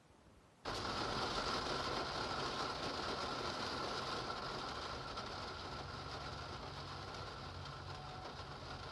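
Steady downpour of heavy rain that starts abruptly about half a second in, with a low steady hum underneath.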